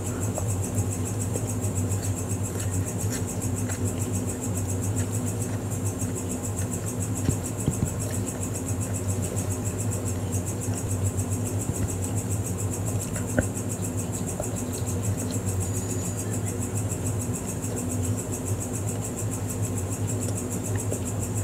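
A steady low hum with a high hiss, as of a motor or electrical equipment running, under a few faint clicks of chewing on a soft bread bun.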